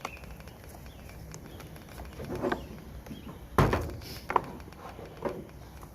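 Hard plastic leaf-blower housing knocking and creaking as its two halves are wiggled and pried apart, with a few sharp knocks, the loudest about three and a half seconds in.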